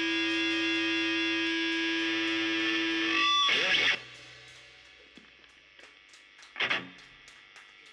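Electric guitar holding one distorted, sustained note through an effects unit. About three seconds in it swells and bends, then it stops abruptly a second later. What follows is much quieter, with small clicks and one short knock near the end.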